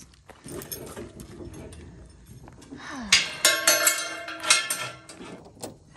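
Steel tie-down chain and steel trailer loading ramps clinking and clanking as they are handled. A cluster of sharp, ringing metallic clinks starts about three seconds in and lasts a couple of seconds, with fainter knocks before it.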